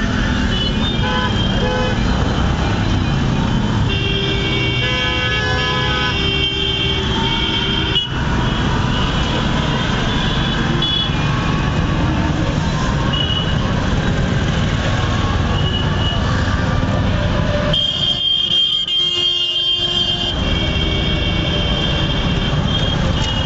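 Busy city street traffic: steady engine and road noise with vehicle horns honking, a run of honks about four to seven seconds in and more near the end.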